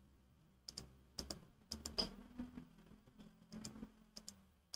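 Computer mouse clicking as checkboxes in a list are ticked: about a dozen faint, irregular clicks, several in close pairs.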